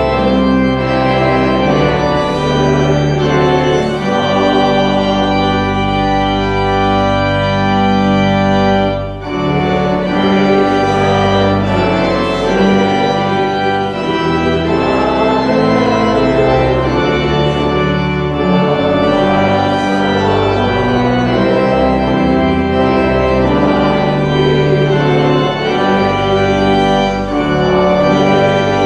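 Church organ playing the postlude that closes the service, full sustained chords changing every second or so, with a brief break between phrases about nine seconds in.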